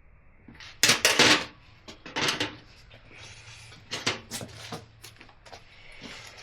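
Metal clanking and knocking as steel and cordless tools are handled and set down, about eight separate knocks, the loudest about a second in, over a faint steady hum.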